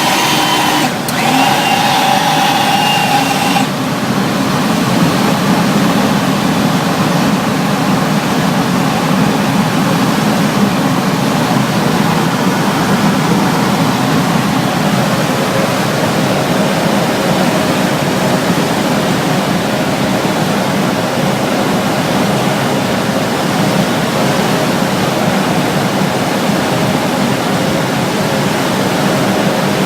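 Cessna L-19 Bird Dog's piston engine and propeller running steadily in flight, heard inside the cockpit as a loud, even drone mixed with airflow noise. In the first few seconds a steady tone sounds over it and stops.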